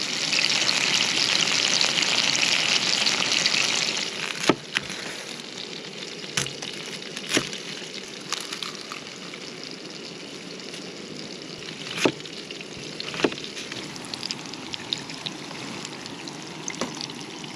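Burger patties sizzling in a frying pan, loudest for the first four seconds and then settling to a quieter sizzle. Scattered sharp clicks and taps of a knife and utensils sound through it.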